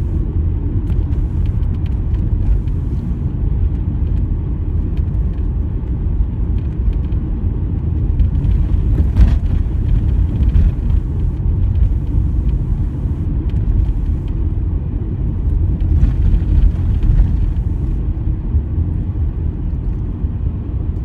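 Steady low rumble of a car's engine and tyres, heard from inside the cabin while driving at town speed, with a short knock about nine seconds in.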